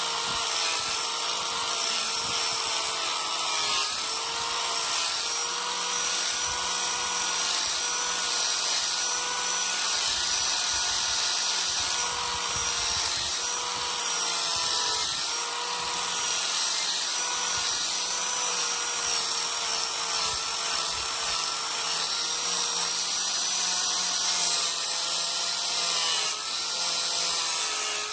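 Electric power tool, most likely a grinder working steel, running steadily with a high hiss over a motor whine. The pitch sags briefly every few seconds as the tool is pressed harder into the work.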